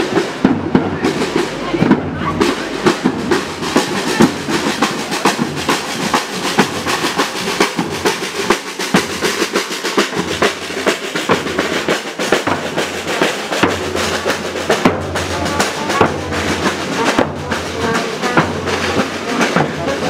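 Marching-band drums, large bass drums among them, beating a steady, dense rhythm with sticks.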